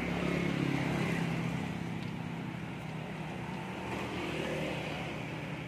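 Hot oil sizzling in a wok of deep-frying battered chicken pieces, with more pieces dropped into it. A steady low motor hum runs underneath and is loudest in the first second or so.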